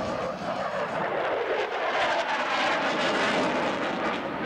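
Fighter jet flying overhead, its engine noise a steady rushing roar that swells through the middle and eases slightly near the end.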